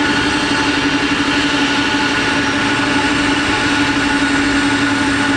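Jet aircraft engines running at a steady pitch: a loud, even rush with a steady whine that neither rises nor falls.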